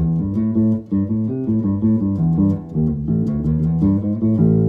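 Six-string Fodera Imperial Elite electric bass, strung E to C, played fingerstyle with its P pickup in hum-canceling mode. It plays a quick run of single notes, then a held note rings out near the end.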